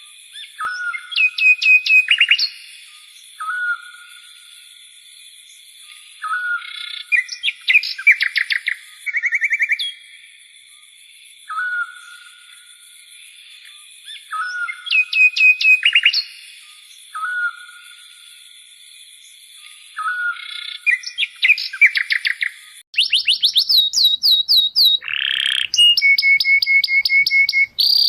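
A bird singing the same phrase over and over every few seconds: a short whistled note followed by a fast trill that falls in pitch, over a steady high hum. Near the end, denser and louder chirping calls take over.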